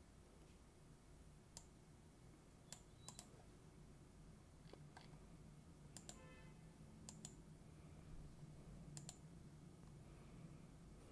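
Faint, scattered computer clicks, some in quick pairs like double-clicks, over a low steady hum; otherwise near silence.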